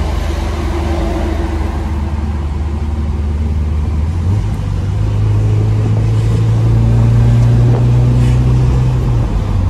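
Tofaş car's four-cylinder engine and exhaust heard from inside the cabin while driving: a steady low drone that rises in pitch and grows louder about four seconds in as the car accelerates, then eases off near the end. The engine is pulling well after a fresh fuel adjustment.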